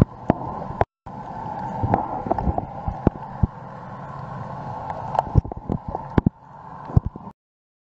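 Underwater sound picked up by a snorkeler's camera: a steady muffled wash with a constant hum and scattered sharp clicks. It drops out briefly about a second in and cuts to silence shortly after seven seconds.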